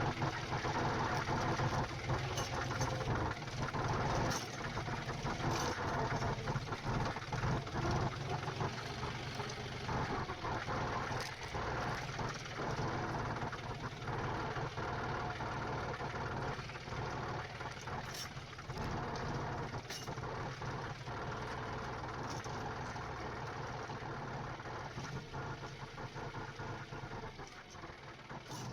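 Tractor diesel engine running steadily, with scattered short knocks and clanks over it; it grows fainter over the last few seconds.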